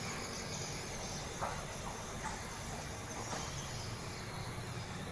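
Steady high hiss of background ambience with a low rumble underneath and a few faint short knocks.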